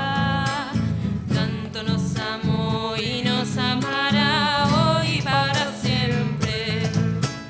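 A hymn in Spanish: a woman sings with vibrato over strummed strings, and a large drum is beaten with a stick.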